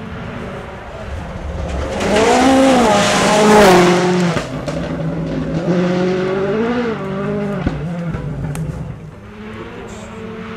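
Ford Fiesta RS WRC rally car passing at speed on gravel, its turbocharged four-cylinder engine revving up and down through quick gear changes. It is loudest about two to four seconds in, with a rush of tyre and gravel noise. The engine note then drops and fades as the car goes away.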